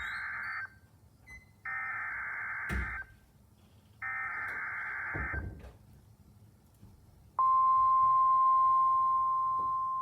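NOAA Weather Radio SAME header: three warbling bursts of digital data tones, the first already under way, each about a second and a half long with about a second between them. About seven and a half seconds in, the steady 1050 Hz weather radio warning alarm tone begins and holds. It announces a severe thunderstorm warning.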